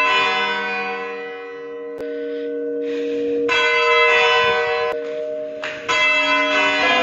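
Large tower clock bells ringing the four o'clock hour. Strokes come a few seconds apart, about three and a half seconds in and again near six seconds, and each rings on and overlaps the next.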